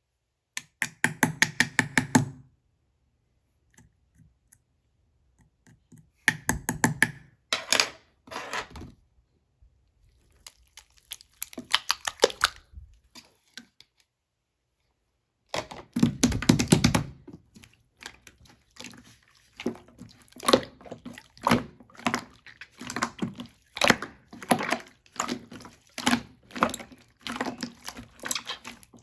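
Irregular bursts of clicks and knocks separated by quiet gaps, growing busier about halfway through.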